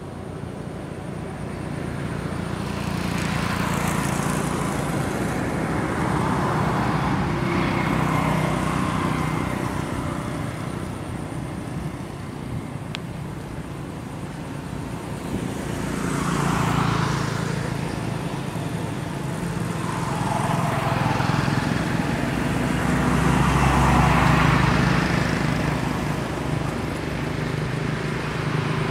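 Road traffic: several motor vehicles pass one after another, each engine hum swelling and fading over a few seconds, the loudest pass near the end.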